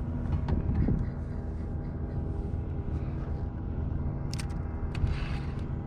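Steady motor hum holding one even pitch, with a couple of faint clicks near the end.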